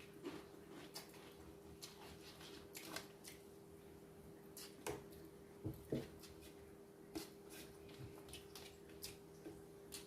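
Faint eating sounds: scattered short clicks and crunches of chewing and of utensils against plates, over a steady faint hum.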